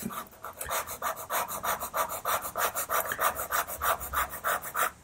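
A white pastel pencil scratching across pastel paper in quick, short, even strokes, about six a second, as fur is hatched in.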